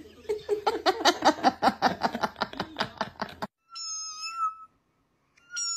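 A rapid run of pulsing sounds, about seven a second, lasting some three and a half seconds and stopping abruptly. Then a cat meows twice: two long, high, steady-pitched meows with a pause between them.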